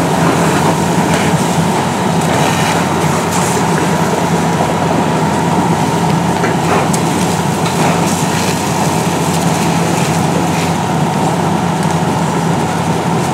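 Fire engine running steadily at the kerb to drive its water pump, a constant drone with a steady whine, under the hiss of a hose stream spraying onto burning rubbish and raising steam.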